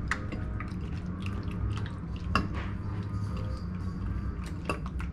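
Hands dipping chunks of fish in a bowl of beaten egg: small wet splashes and clicks against the bowls. Under them runs the steady low drone of a leaf blower.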